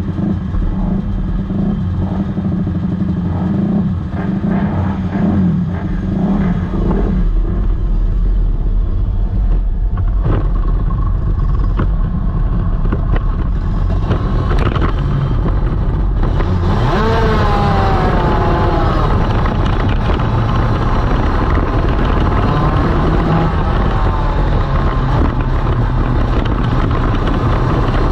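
Onboard sound of a Division 1 superkart's 250cc twin-cylinder two-stroke engine under way. The note stays fairly steady for the first several seconds, then from about halfway in it revs hard, the pitch climbing and dropping again and again through the gears.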